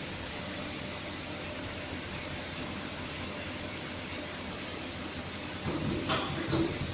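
Automatic USB Type-C soldering machine running with a steady mechanical hum. A few short clacks and knocks come near the end.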